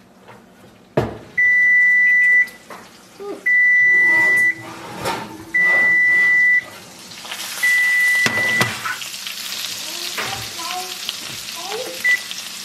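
A knock as the oven door is opened, then four long, loud electronic beeps of one pitch, each about a second long and about two seconds apart. A steady hiss comes in about halfway through as the roast is lifted out, and a few short, quick beeps come near the end.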